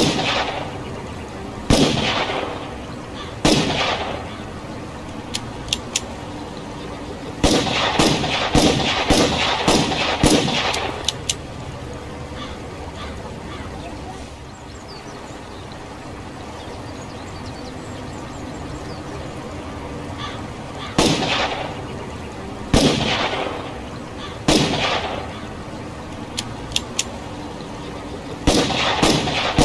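Revolver gunshots with echoing tails: single shots a second or two apart, a quick string of several shots about eight seconds in, then more single shots and another quick string near the end. Faint light clicks fall between the groups.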